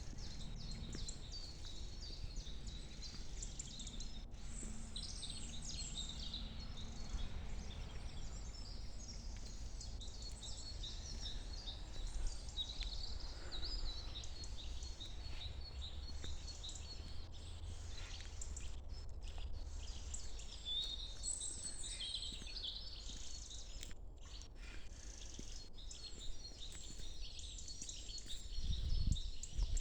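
A chorus of many small birds chirping and twittering together, dense short high chirps overlapping throughout, over a steady low rumble. Near the end a louder low rumbling noise comes in.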